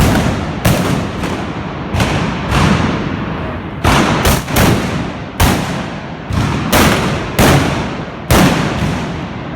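Trabucaires' trabucs (black-powder blunderbusses) firing blank charges in a ragged volley of about a dozen loud shots, some almost on top of each other, each ringing on with a long echo.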